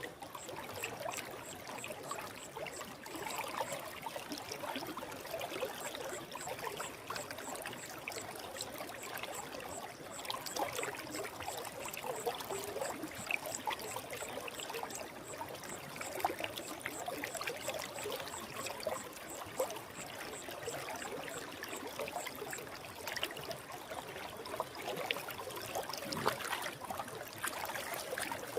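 Forest stream flowing steadily, a constant trickling and bubbling rush of water. A faint, evenly repeating high chirp runs through the first half.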